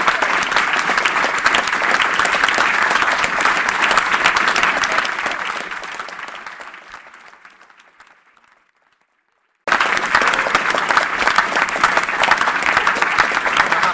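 Audience applauding in a small room, with many hands clapping. The applause fades out to about a second of silence partway through, then cuts abruptly back in at full strength.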